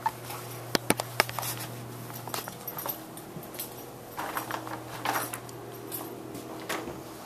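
Handling noise from a handheld camera being carried: a quick run of sharp clicks about a second in, then scattered clicks and short rustles, over a steady low hum.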